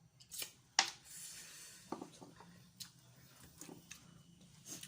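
Boiled seafood being handled and eaten: a series of sharp cracks and clicks of shells, the loudest about a second in, with squishy wet sounds between them.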